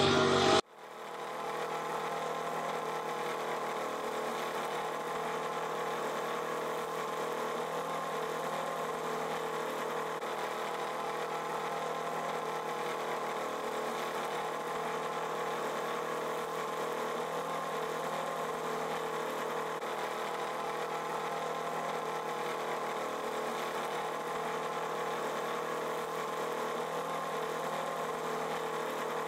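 An engine idling steadily at a constant pitch, with no revving, starting suddenly about half a second in.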